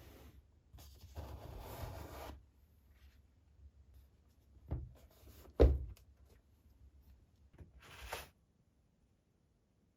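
Hands handling PC-build parts or packaging: a rustle, then two sharp knocks about a second apart, the second the loudest, and another brief rustle near the end.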